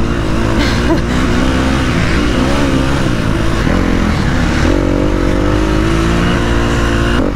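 KTM 250 SX-F single-cylinder four-stroke motocross engine running under the rider, its pitch rising and falling with throttle changes as the bike is ridden on dirt.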